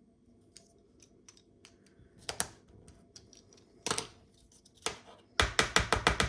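Plastic clicking and scraping as a car key fob's plastic shell is pried and pushed at by hand to free the transponder chip: a few separate scrapes, then a quick run of about eight clicks near the end.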